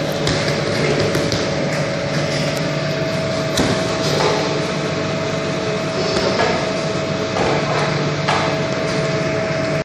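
Steady hum of running bakery machinery with a constant whine, broken by a few sharp knocks.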